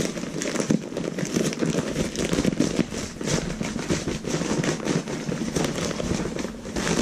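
Packing paper wrapped around an exhaust part being pulled off and handled: continuous rustling and crinkling made of many small crackles.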